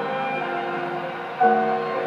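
Music from an AM broadcast playing through the speaker of a Fujitsu Ten MO CE-6233EX2 car stereo tuned to AM 1548. It has held instrumental notes and little treble, and a louder chord comes in about a second and a half in.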